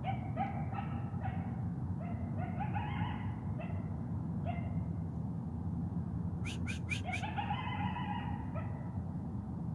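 Coyotes yipping and howling: a run of short rising yelps and wavering howls, a pause, then a second run. Four quick sharp sounds come a little past the middle.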